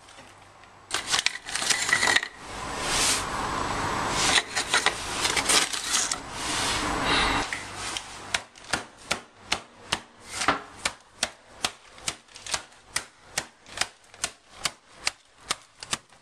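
Plastic freezer bag of rich tea biscuits crinkling and rustling as it is handled. About halfway through, a rolling pin starts bashing the biscuits in the bag, a steady run of knocks at about two a second, crushing them to crumbs.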